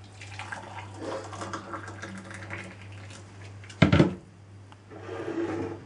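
Hot water poured from an electric kettle into a ceramic mug, followed about four seconds in by a loud sharp clunk, and a second, shorter clatter near the end.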